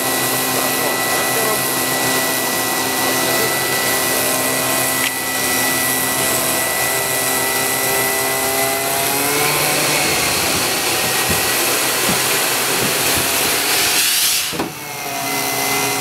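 Air supply inflating truck-recovery air cushions: a steady machine hum with several held tones over rushing air. About nine seconds in its tones rise slightly and it turns noisier, and near the end it breaks off abruptly.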